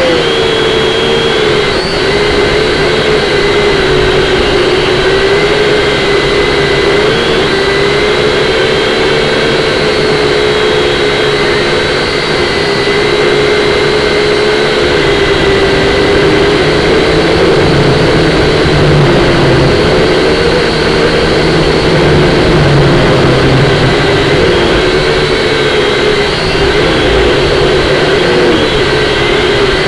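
Syma X5C-1 quadcopter's small electric motors and propellers whining steadily, the pitch wavering up and down as the throttle is worked, over a constant rush of noise and low rumble from strong wind.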